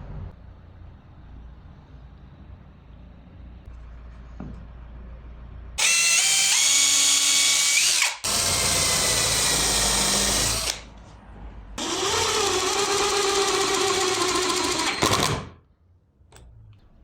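Power drill running in three loud bursts of two to four seconds each, starting about six seconds in, its whine shifting in pitch within each run.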